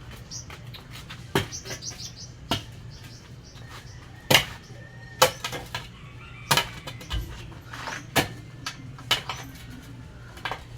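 Sharp knocks, about eight in all at uneven intervals of roughly one to two seconds, over a steady low hum. A quick series of high chirps sounds in the first two seconds.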